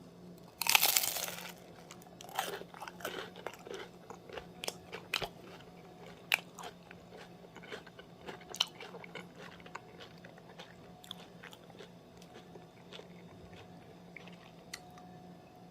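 A bite into a crisp batter-fried chili pepper, with one loud crunch about a second in, then crunchy chewing that thins out over the next several seconds.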